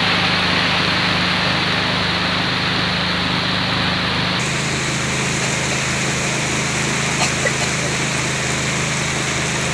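Heavy rain pouring down onto the water, with a boat's motor running steadily underneath. The sound changes abruptly about four seconds in.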